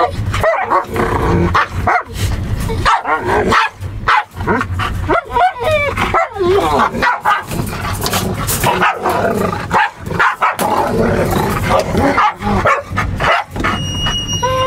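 Dogs squabbling in a wire crate: a blue heeler barks, growls and yelps as it drives a shepherd away from its spot, in many short, sudden outbursts. A steady low rumble of the moving vehicle runs underneath.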